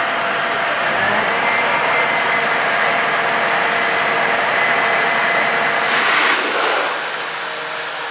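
Fire truck engine and pump running with a steady rushing noise and a faint steady whine. The sound swells briefly, then drops and grows quieter about seven seconds in.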